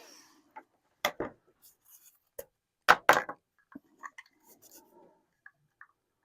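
Scattered sharp knocks and light clinks of small metal parts and hand tools being picked up and set down on a workbench. The loudest are a pair about three seconds in.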